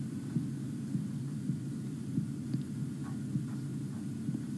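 Steady low background hum of the room, with a few faint ticks a little past halfway.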